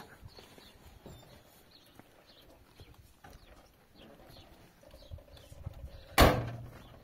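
Scattered light knocks and clicks, then one loud thump about six seconds in.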